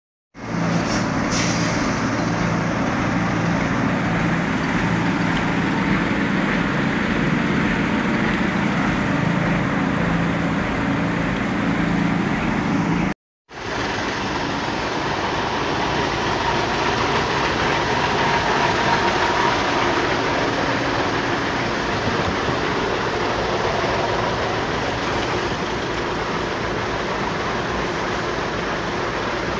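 Traffic jam of trucks, buses and cars, heard close by with their engines idling. A steady low engine drone fills the first part. The audio cuts out briefly about thirteen seconds in, and after that it is a more even traffic noise.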